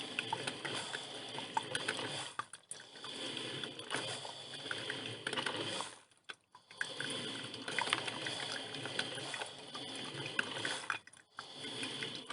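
Filter coffee machine brewing: water gurgling and sputtering as it is heated and pushed up to the filter, with a dense crackle of small bubbles. It goes in long stretches broken by brief pauses about two and a half, six and eleven seconds in.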